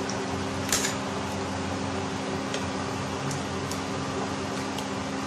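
A steady mechanical hum runs throughout, with a few light clicks of a metal ladle against the pot as sliced bamboo shoots are stirred in soup; the sharpest click comes a little under a second in.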